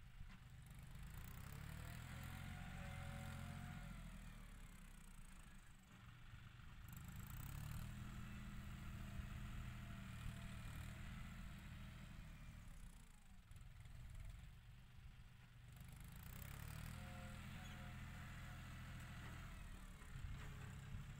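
John Deere 5045 tractor's diesel engine running steadily while it pushes soil with a rear blade, its note swelling and fading in three stretches as the tractor works back and forth.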